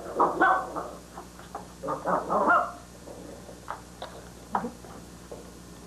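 A small dog making two short bursts of vocal noise, one right at the start and one about two seconds in, followed by a few light clicks.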